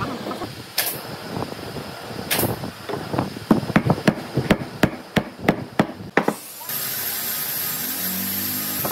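Hammer blows: two separate knocks, then a rapid run of about a dozen strikes at roughly four a second. A steady hiss starts near the end.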